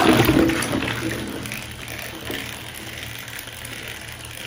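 Water sloshing and wet plastic balls knocking together as a hand stirs through a bucket of balls, louder at first and fading after about a second.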